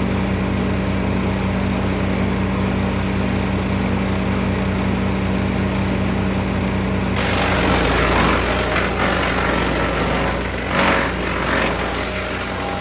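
MechMaxx P4205 wood chipper's small gasoline engine running steadily. About seven seconds in a louder, noisier sound joins over the engine, swelling briefly near eleven seconds.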